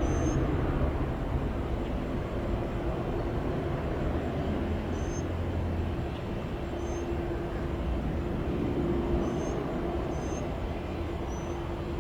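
Jet airliner engines running at an airport: a steady drone with a constant low hum, the deeper rumble easing off about halfway through.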